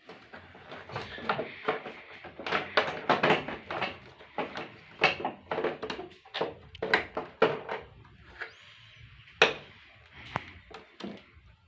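Irregular plastic clicks, knocks and rattles as the casing of a split air conditioner's indoor unit is handled and taken apart. They are busiest in the first eight seconds, with one sharper knock later on.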